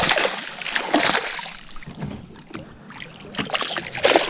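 Hooked peacock bass thrashing and splashing at the surface beside a kayak: a burst of splashing right at the start, another about a second in, and more near the end.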